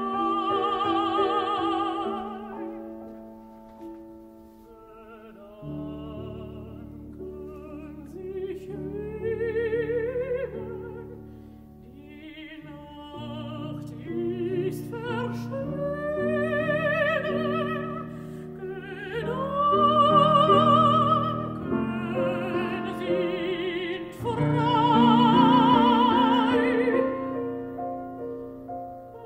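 A mezzo-soprano singing a German art song with a wide vibrato, accompanied by piano. The sung phrases swell and fade, with a few loud held notes.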